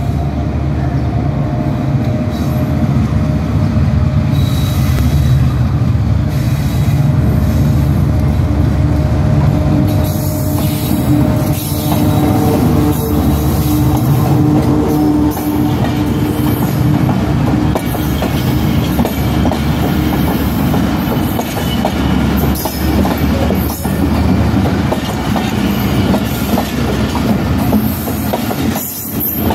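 Passenger express train passing close by: the diesel locomotive's engine drone comes first, then from about ten seconds in the coaches roll past with their wheels clattering over the rail joints.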